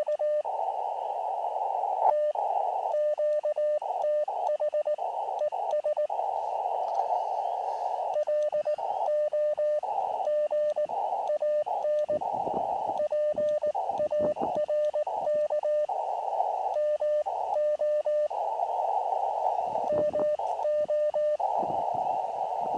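Elecraft KX2 transceiver sounding Morse code: a steady mid-pitched tone keyed in dots and dashes over receiver hiss, the exchange of a CW contact in progress.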